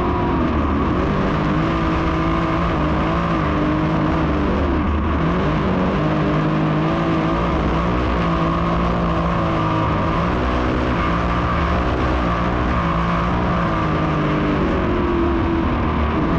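A field of dirt modified race cars at full race speed. Several engines rise and fall in pitch as they get on and off the throttle through the turns, over a constant rumble.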